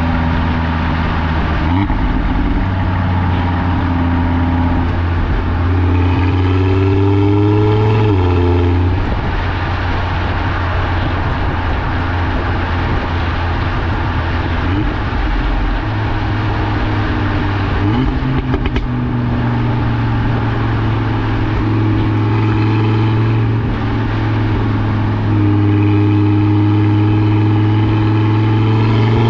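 Audi RS3 8V's turbocharged five-cylinder heard at the exhaust tips, cruising and pulling through the gears with pitch drops at each upshift and rising during two accelerations, one a few seconds in and one near the end. At first an aftermarket valve-control box holds both exhaust valves open; later the car is in Dynamic mode with only one valve open below 3500 rpm.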